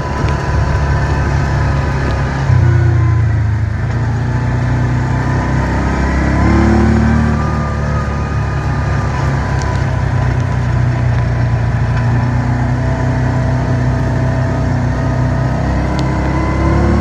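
Side-by-side off-road vehicle engine running under way on a dirt track, heard from inside its open cab with a heavy low rumble. It revs up a few seconds in and again around seven seconds in.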